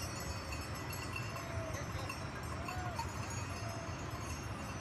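A flock of sheep bleating: about three short, arched calls, with faint bells clinking among them over a steady low rumble.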